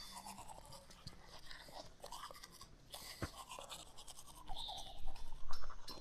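Irregular scratching and scraping with scattered clicks, getting louder near the end.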